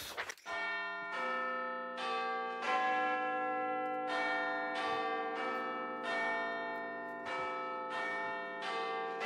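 Tuned bells, as of a church or clock tower, ringing a sequence of different notes, a new stroke about every second, each left ringing under the next. A short rustle of card comes just before the first stroke.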